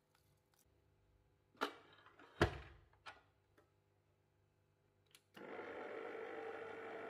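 A few sharp knocks and clicks, the loudest about two and a half seconds in, as the stand mixer's head is lowered onto its bowl. Then, about five seconds in, the Oxone stand mixer's motor starts and runs steadily, turning the dough hook through the flour.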